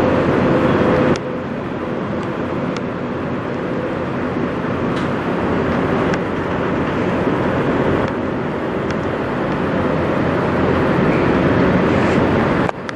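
Diesel semi-truck engine idling steadily, a dense rumble that drops abruptly in level about a second in and again near the end.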